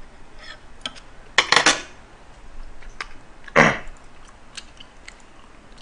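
Eating utensils clinking against a metal pot and a stainless steel bowl: a few sharp, separate clicks, with two louder short noisy bursts about one and a half and three and a half seconds in.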